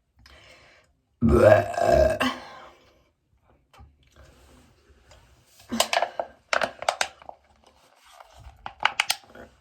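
A loud, drawn-out human burp about a second in, after chugging a can of Red Bull, followed later by two clusters of short sharp clicking sounds.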